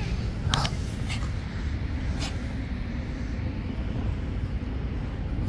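Steady low outdoor rumble, with a few short clicks in the first two seconds or so.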